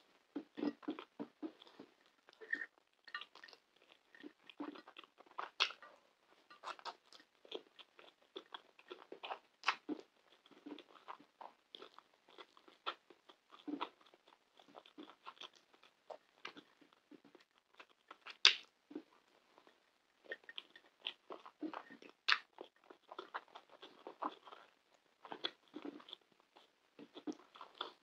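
Close-miked eating: wet chewing and lip-smacking of soft pan kebab in tomato sauce and saffron rice, in many short irregular smacks and clicks, with the fingers squishing through the saucy food. A few sharper clicks stand out, loudest about two-thirds of the way in.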